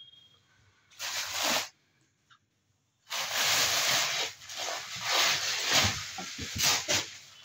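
Crisp organza silk saree fabric rustling as it is handled and spread out: a brief rustle about a second in, then a longer stretch of rustling with a few soft knocks from about three seconds in.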